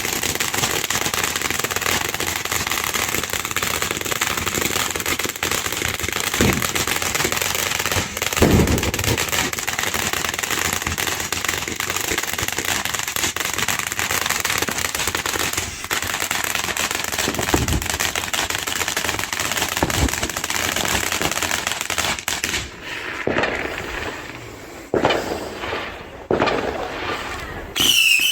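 Firework fountains spraying in a dense, continuous crackling hiss, with a few louder bangs along the way. Over the last few seconds it thins out into separate bursts.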